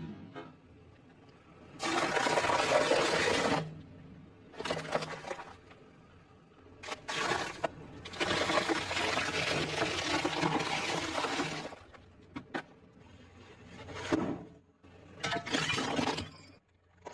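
Car tyre rolling over and crushing objects, bread and plastic ketchup bottles among them: several bursts of crunching, cracking and squishing. The two longest last about two and about four seconds, with shorter cracks between them.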